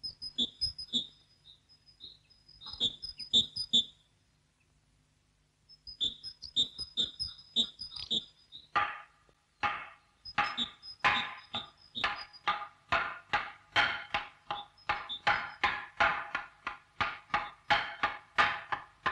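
Hand-held wooden semantron (talanton) struck with a wooden mallet, sounding the monastic call to prayer. Ringing wooden knocks come in short irregular groups, then pause for about two seconds. From about nine seconds in they settle into a steady run of about two and a half strikes a second.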